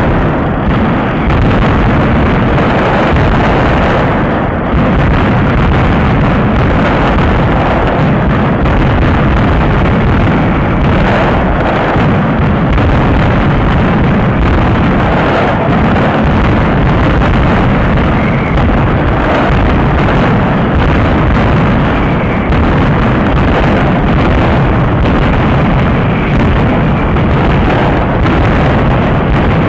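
A barrage of daytime firecrackers and aerial bangers going off in rapid succession, so dense that the bangs merge into one loud, unbroken rumble.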